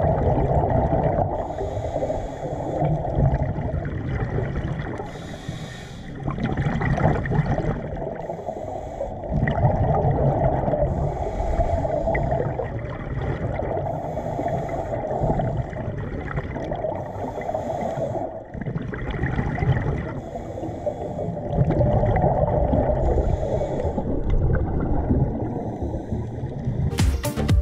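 Scuba diver breathing underwater through a regulator: a hissing inhale and the gurgling rumble of exhaled bubbles, repeating every few seconds.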